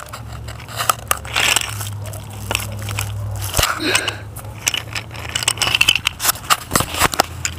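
Dry grass and plant litter crunching and crackling, with many irregular sharp clicks and rustles, as a toy train is pushed through it by hand.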